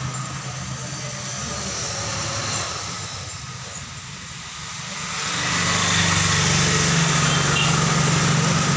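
An engine running with a steady low hum, growing louder about five and a half seconds in.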